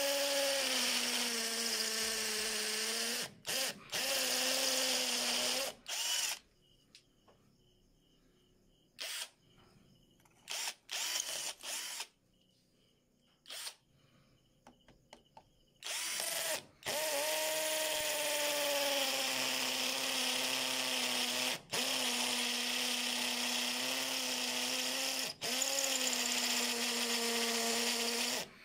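Titanium Power cordless hammer drill boring into concrete. The motor's steady whine sinks a little in pitch soon after it starts, stops briefly a few times, goes quiet for about ten seconds in the middle apart from a few short bursts, then runs steadily again.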